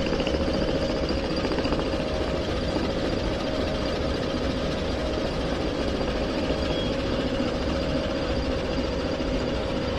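Lathe running steadily while a worm-shaped cutter turns in mesh with a gear wheel, cutting its teeth; a constant machine hum with one steady tone.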